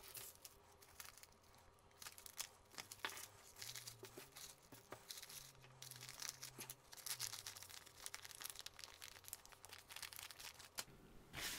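Thin plastic packaging crinkling and rustling as it is handled, with scattered small clicks and crackles throughout.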